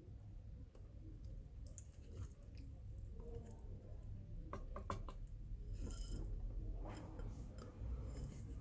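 Scattered small clicks and handling noises of tools and parts over a steady low hum, with a cluster of sharp clicks a little past the middle.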